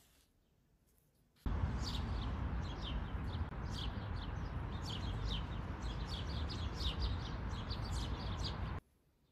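Many birds chirping, with quick, high, falling chirps overlapping several to a second, over a steady low outdoor rumble. It starts abruptly about a second and a half in and cuts off shortly before the end.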